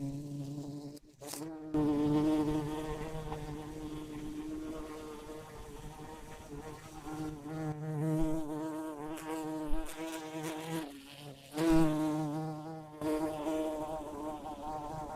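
Bumblebee buzzing in flight: a low, wavering hum that swells and fades as the bee moves nearer and away. It breaks off briefly about a second in and again near eleven seconds.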